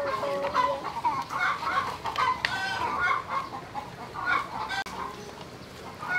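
Chickens clucking, many short calls overlapping one another.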